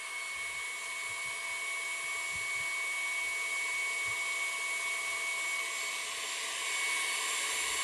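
Electric tilt-head stand mixer running steadily, beating a creamed butter and coconut sugar batter as eggs are worked in. It is a steady motor whine with a high, even tone, a little louder near the end.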